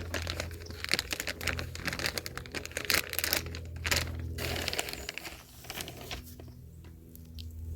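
A bag of granulated fertilizer crinkling and tearing as it is pulled open, a dense run of crackles that dies down about five seconds in.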